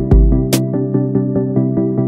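Electronic background music: a synthesizer plays quick repeated notes, about seven a second, over a bass line, with a deep thump at the start and a sharp snare-like hit about half a second in.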